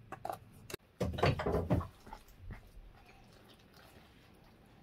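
A few light clicks of a plastic jar lid being handled, then about a second in a short, loud call lasting under a second.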